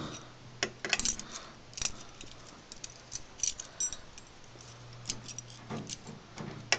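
Steel try-out key being rocked and turned in a 3-lever lock: irregular metallic clicks and scrapes, a few with a brief high ring, as the key's bit pushes against the levers and the other keys jingle on the ring. The levers do not lift, so this key gives no draw on the bolt.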